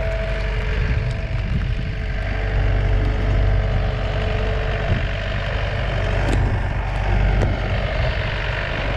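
Engine of a loader tractor running steadily as it moves.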